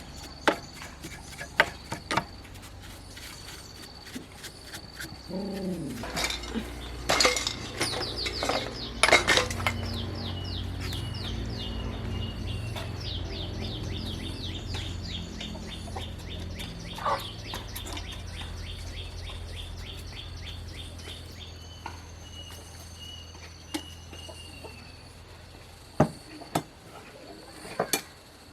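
Metal tools and parts clinking and knocking as they are handled, with a low steady hum and a fast run of short high chirps through the middle.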